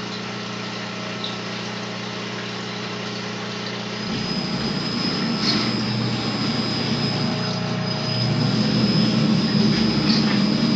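Homemade knife-sharpening grinder running with a steady motor hum. About four seconds in it gets louder and rougher, with a thin high whine, as the wheel starts grinding the knife's edge.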